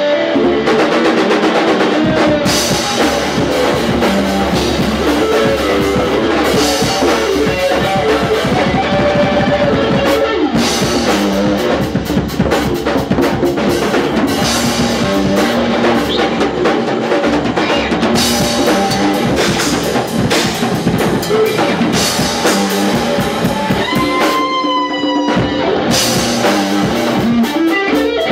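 Band playing rock music live: distorted electric guitar through a Marshall combo amp over a drum kit, loud and continuous. About 24 seconds in, the cymbals stop for a moment while a guitar note slides up and holds.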